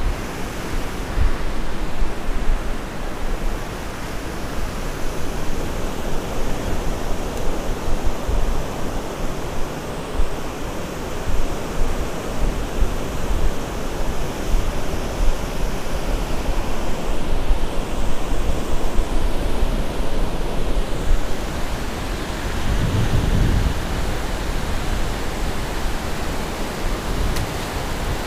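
Wind buffeting the microphone over a steady rush of wind and open water, with gusty low rumbles and no distinct events.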